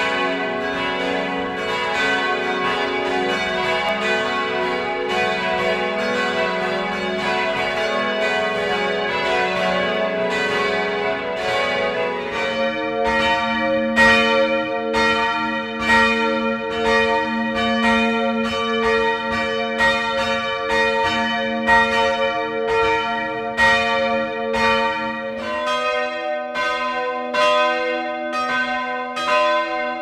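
Church bells ringing: a full peal of several bells, strokes overlapping and their tones hanging on. It switches abruptly to a different church's peal about twelve seconds in, and again near the end.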